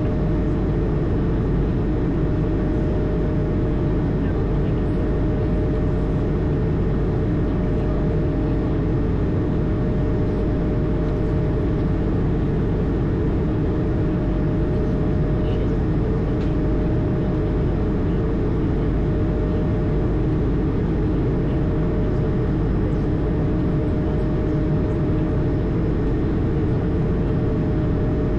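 Steady drone of an Airbus A220 heard from inside the cockpit: engine and air noise, even and unchanging, with a faint constant tone running through it.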